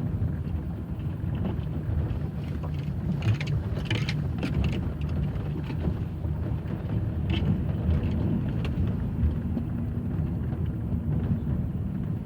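Chevrolet Aveo driving slowly over rough, potholed pavement: a steady low rumble of tyres and running gear, with a few sharp knocks from the front suspension. The owner blames the knock on load reaching the upper strut mount, and expects new springs to cure it.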